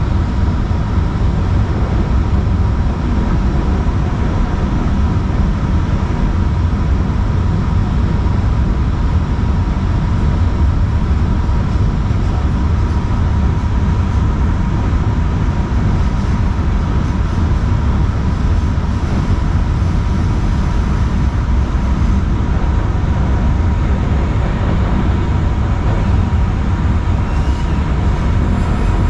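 A Kinki Sharyo light rail car running steadily along the track, with a continuous low rumble and a steady whine over it.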